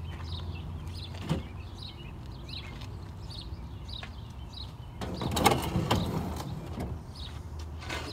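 Enamelled steel stove cooktop being handled and set down with a metallic clatter and ringing about five seconds in, after a single sharp click just over a second in. Birds chirp repeatedly over a steady low hum.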